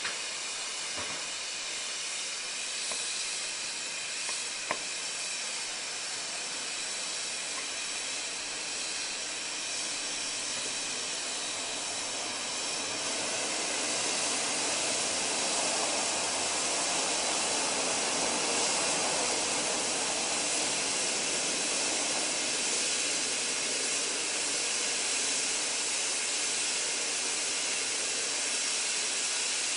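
Steady steam hiss from Furness Railway No 20, an 1863 Sharp Stewart steam locomotive standing with steam escaping around its cylinders. A single sharp click comes about five seconds in, and the hiss grows louder about halfway through.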